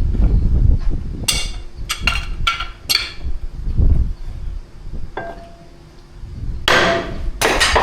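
Hammer blows on the steel taper-lock hub of a John Deere 730 crankshaft, struck to seat the hub on its taper. Four sharp, ringing strikes come about half a second apart, then a lighter one and two heavier blows near the end.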